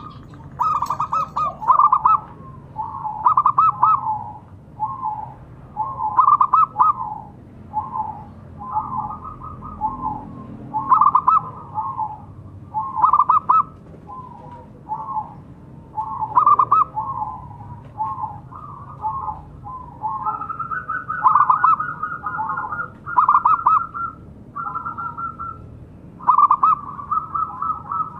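Zebra dove (perkutut) cooing: repeated phrases of short, rapid notes, one after another every second or two, with a higher, steadier call joining about twenty seconds in.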